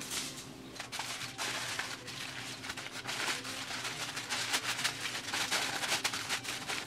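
Aluminium foil crinkling and rustling as it is folded and crimped by hand into a packet around a piece of meat: a continuous run of fine crackles.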